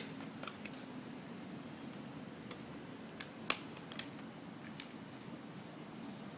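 Sharp handling clicks and knocks as the cork-and-wick top of a homemade tiki torch is handled and set down on the floor and a plastic bottle of torch fuel is picked up and opened. There is a loud click right at the start, a louder one about three and a half seconds in, and a few fainter ticks in between and after, over a steady low hum.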